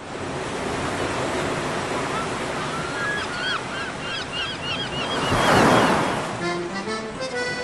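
Recorded sea-waves sound effect: a steady wash of surf with gulls crying repeatedly in the middle. A wave swells and breaks about five and a half seconds in, the loudest moment. Accordion-led music starts near the end.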